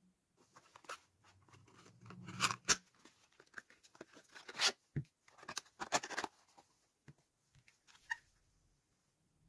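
Thin cardboard box of a toothpaste tube being opened by hand: the tuck flap pulled open with a run of sharp crackles, snaps and tearing of paperboard, loudest about two and a half, four and a half and six seconds in, then quieter handling.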